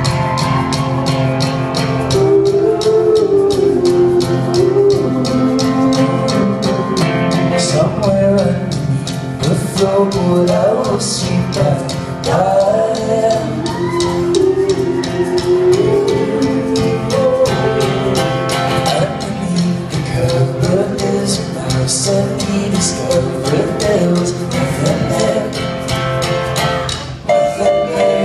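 Indie folk band playing a song live: a singing voice over acoustic guitars, keyboard and a steady drum beat, heard from the audience through the hall's PA.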